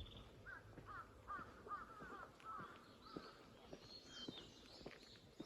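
Faint outdoor bird calls: one bird gives a quick run of about seven repeated calls in the first half, and other birds call higher later, over faint footsteps on a path.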